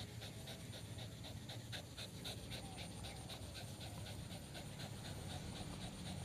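A dog panting fast and steadily, about four breaths a second.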